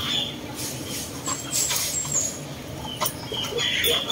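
Hot water poured in a thin stream from a stainless steel kettle into ceramic mugs, with small birds chirping at the start and again near the end.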